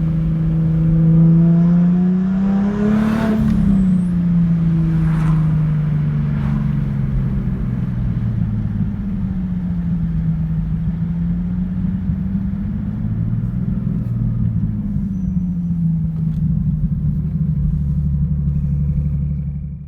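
Turbocharged Lexus IS300's inline-six engine running while the car is driven, heard from the cabin. Its pitch climbs briefly about three seconds in, then eases off and rises and falls gently with the throttle.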